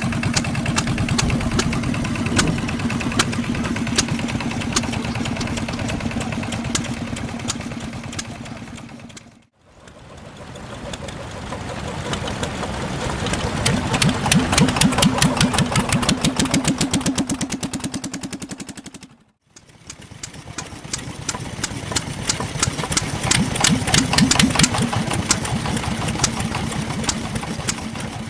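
Yanmar SK single-cylinder marine diesel engine running, each firing stroke distinct. The sound cuts out briefly twice. In the later stretches the beat grows faster and louder, then eases off.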